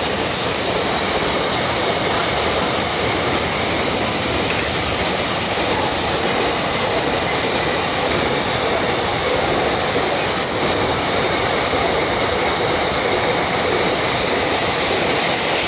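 Container freight train of flat wagons rolling past at speed, its wheels clattering steadily over the rails under a constant high-pitched squeal.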